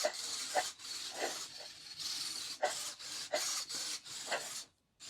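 Robosen Buzz Lightyear robot's servo motors (23 of them inside) whirring in a string of short rasping bursts, about six in a row with brief gaps, as the robot runs a programmed attack move.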